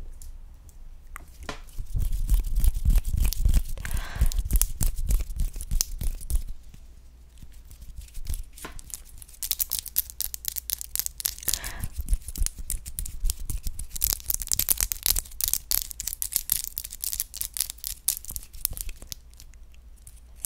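Long acrylic fingernails clicking, scratching and rubbing together right at a microphone in fast, crackly runs, with low thumps from the hands brushing near it.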